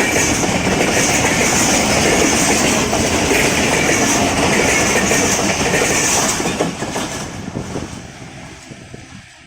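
Passenger train coaches running past at speed, wheels clacking over the rail joints; the sound fades away from about seven seconds in as the end of the train passes.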